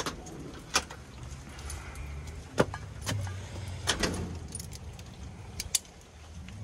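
A series of sharp clicks, knocks and jingles from a door being handled and a dog's metal chain collar and leash clip, spread through a few seconds over a low, steady rumble.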